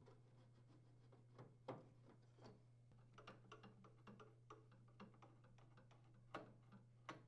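Faint, scattered clicks and ticks of a Phillips screwdriver turning out the screws of a microwave hood's top grill, the loudest about two seconds in and again about six seconds in, over a faint steady low hum.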